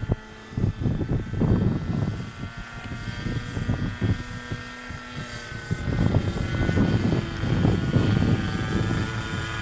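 Pete N Poke radio-controlled model airplane's motor and propeller droning steadily overhead, the pitch sagging a little about halfway through. Gusts of wind buffet the microphone with an uneven low rumble.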